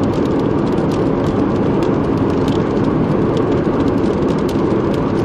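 Steady rumbling drone of a vehicle heard from inside, with scattered light ticks throughout.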